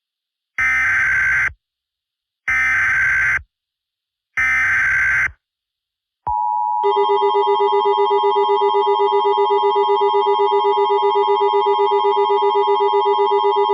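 Emergency Alert System header: three short bursts of screeching digital data tones about two seconds apart. About six seconds in, the long, shrill EAS attention tone begins, a steady alarm tone with a fast pulse, announcing a tornado warning.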